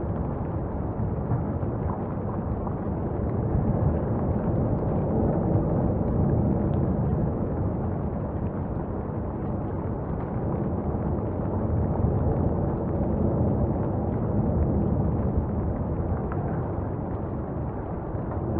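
Lava fountain erupting from Etna's South-East crater during a paroxysm: a continuous low rumble with no pauses, swelling a little in loudness a few seconds in and again near the middle.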